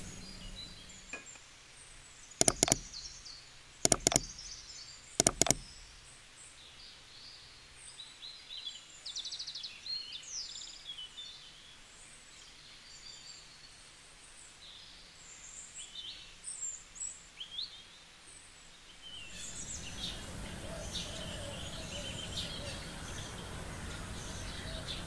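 Small birds chirping and calling, with three loud sharp double clicks about a second and a half apart in the first few seconds. Near the end a louder steady background noise with a low rumble comes in under the birdsong.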